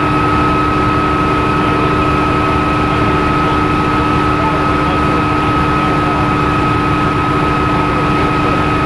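Bell OH-13 Sioux helicopter's piston engine and rotor running steadily in flight, heard from inside the open cockpit: a dense, even rumble with a steady high whine over it.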